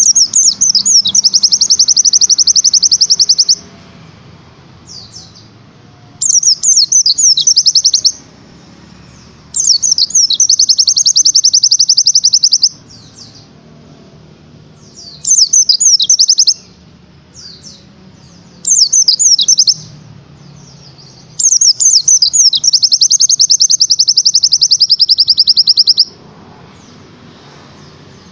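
White-eye (pleci) singing in the rapid-fire 'tembakan' style: six high-pitched phrases, each opening with a few quick sweeping notes and running into a fast, even trill, with pauses of a couple of seconds between them.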